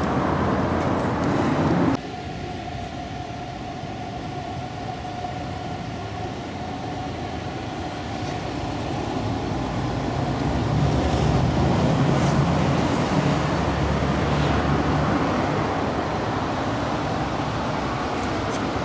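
City street traffic: a steady wash of passing vehicles. The sound drops abruptly about two seconds in, a faint steady whine follows, and a heavier low rumble of a vehicle swells and passes in the middle.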